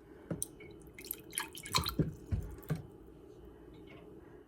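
Liquid dripping and splashing: a string of short drips over about the first three seconds, then only a faint steady hum.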